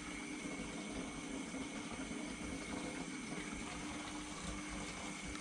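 Aquarium water circulation: a steady bubbling, trickling hiss of moving water, with a faint steady pump hum.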